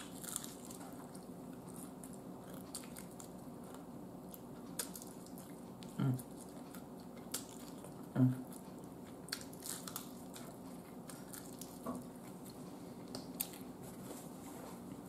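Biting and chewing fried chicken, with scattered sharp clicks and crunches of the mouth and food. Two short low sounds about six and eight seconds in, over a low steady hum.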